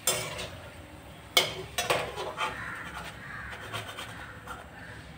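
Oil sizzling around a puri deep-frying in a kadhai, with clicks and scrapes of a perforated metal skimmer against the pan as the puri is pressed and lifted out. The sharpest strikes come at the very start and about one and a half seconds in.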